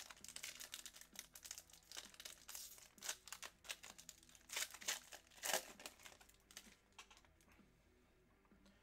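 A foil trading-card pack wrapper being torn open and crinkled by hand. The crackling tapers off after about six seconds, and a few faint clicks follow as the cards are slid out.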